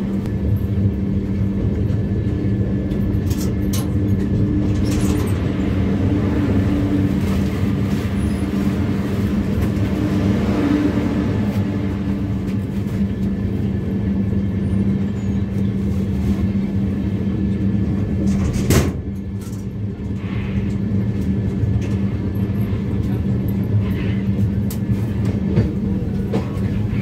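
Steady rumble with a constant hum from inside an Indian Railways Duronto Express coach. A single sharp knock comes about three-quarters of the way through, after which it runs a little quieter.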